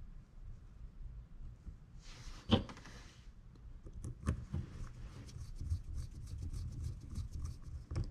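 Small parts of a baitcasting reel being handled and reassembled: one sharp click with a brief rustle about two and a half seconds in, then a run of quick, light clicks and ticks in the second half.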